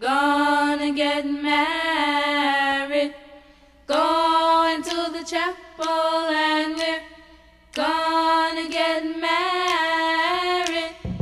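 Background music: a solo singing voice holds long, slow notes in phrases of about three seconds with short pauses between them, and fuller music with a deep bass comes in at the very end.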